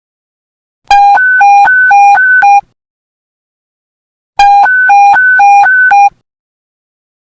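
Police panic-button alert tone sounding twice. Each burst lasts under two seconds and rapidly alternates a low and a high beep, about four changes a second, and the second burst starts about three and a half seconds after the first.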